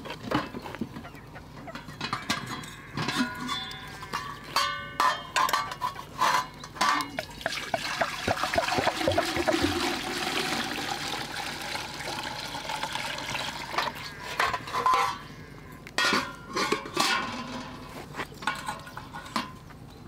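Water poured from a metal jug into a samovar, a steady rushing pour of several seconds about eight seconds in. Before and after it, metal clinks and ringing clanks of the samovar's parts being handled.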